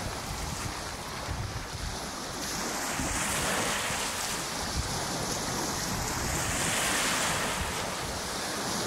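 Small waves breaking and washing over a seaweed-covered sandy shore, two washes swelling up about a third of the way in and again near the end, with wind rumbling on the microphone.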